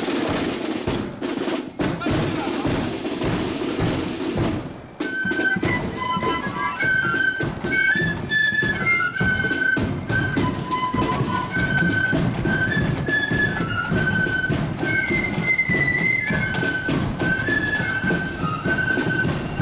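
Marching flute band: the drums play on their own with a dense rattle for the first few seconds, break off briefly about five seconds in, then the flutes come in with a bright melody over the drum beat.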